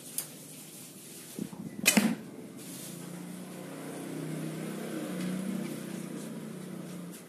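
A shot from a 40-pound Turkish-type bow made by Antelope Bow: a few light knocks a little after one second, then a loud sharp crack about two seconds in. Over the last four seconds a low engine hum swells and fades.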